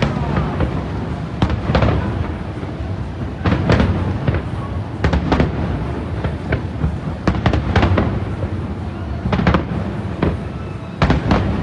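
Fireworks shells bursting: an irregular series of sharp bangs and cracks, several in quick clusters, over a continuous low rumble.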